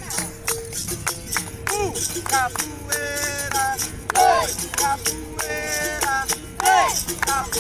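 Capoeira music: regular rattling percussion strokes under a steady held tone, with a singing voice holding long notes in the middle.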